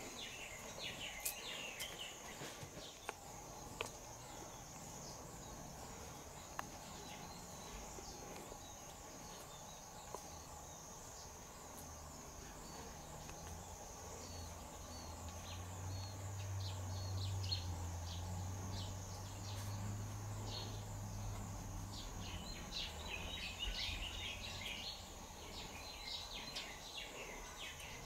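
Outdoor ambience: a steady high insect buzz with small birds chirping, busiest in the first few seconds and again in the last several. A low hum joins for several seconds in the middle.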